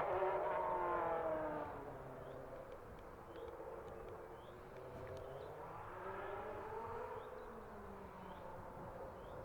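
1990 Benetton B190 Formula One car's Ford-Cosworth V8 heard at a distance, its note falling away after a pass. Further round the lap it rises and falls again as the car accelerates and shifts.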